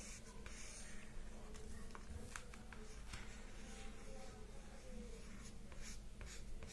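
Felt-tip marker scratching across paper card in short strokes as thin lines are drawn, faint, over a low steady hum.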